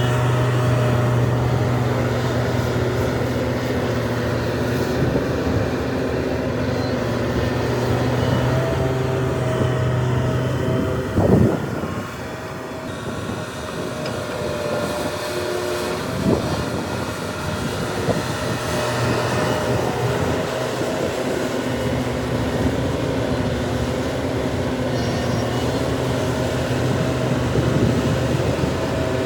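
Heavy diesel engines of a large excavator and dump trucks running steadily under load, a constant low drone. There is a loud sharp knock about eleven seconds in and a lighter one around sixteen seconds.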